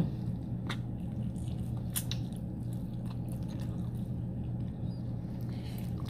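A person chewing a mouthful of rotisserie chicken close to the microphone, with a few sharp wet mouth clicks. A steady low hum runs underneath.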